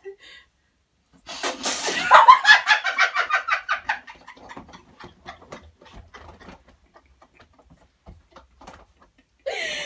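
Two people bursting into hard laughter about a second in, loud and in rapid pulses, then trailing off into quieter, breathy laughs.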